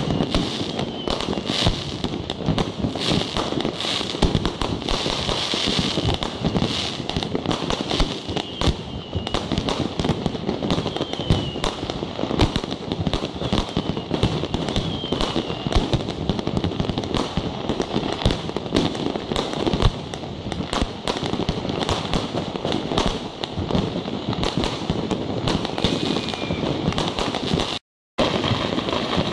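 Fireworks going off without pause: a dense, rapid barrage of bangs and crackling from many firecrackers and aerial shells. Several short whistles falling in pitch cut through it.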